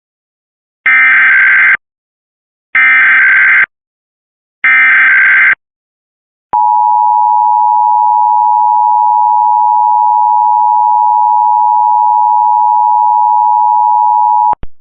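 Emergency Alert System header for a Required Monthly Test: three bursts of SAME digital data tones, each a little under a second long with about a second of silence between them, then the two-tone EAS attention signal, a steady dual tone held for about eight seconds before it cuts off.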